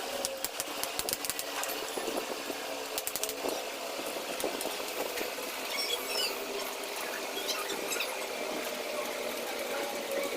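Scattered clicks and light knocks of angle grinder parts being handled during disassembly, most of them in the first few seconds, over a steady faint hum.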